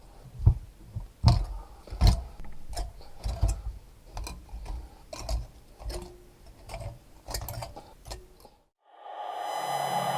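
Irregular knocks and clatters of hard objects, about a dozen sharp hits with dull thuds under them. Near the end they stop, and a steady honking tone begins.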